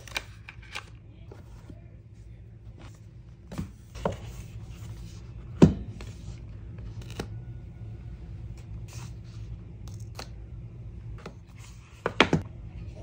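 Cardboard phone boxes and paper inserts being handled on a wooden tabletop: scattered taps, slides and light clicks, with one sharper knock about halfway through and a short cluster of clicks near the end, over a low steady hum.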